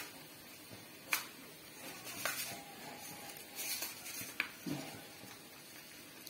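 Sesame seeds rustling in a small plastic bowl as a flattened rice-flour dough piece is pressed and turned in them, with a few sharp clicks.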